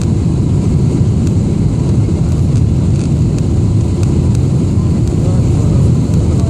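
Steady low rumble of engine and airflow noise inside the cabin of an Emirates Boeing 777-300ER, with its GE90 turbofans, on approach to Lisbon.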